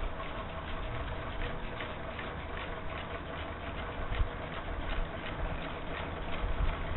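Whirligig mechanism turning in a moving airstream, its moving parts clacking several times a second over a steady hum, with a couple of low thumps.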